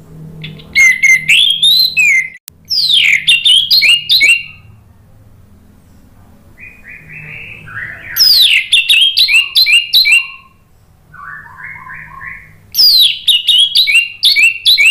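Orange-headed thrush (anis merah) singing: four loud phrases, each a quick run of varied whistled notes and sharp pitch sweeps lasting about two seconds, with softer, lower-pitched phrases in the gaps between.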